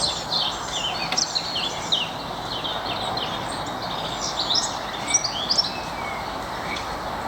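Birds singing: many short chirps and quick whistled notes, over a steady background hiss.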